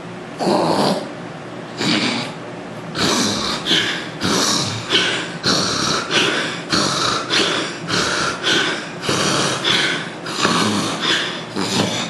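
A man snoring in his sleep: two separate snores, then a quick run of short noisy snores, about two a second. The uploader puts this snoring down to nasal obstruction from weight gain.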